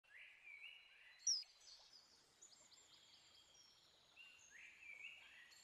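Birdsong: several small birds singing repeated whistled phrases, with one sharp, high note a little over a second in standing out above the rest.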